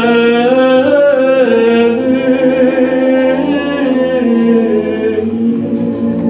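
Unaccompanied group singing: several voices in harmony holding long sung notes and moving from note to note together.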